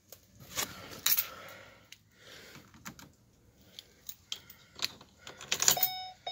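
Keys jangling and clicking as the ignition key is handled at the steering column. Near the end, the van's dashboard warning chime starts dinging in short, even repeats.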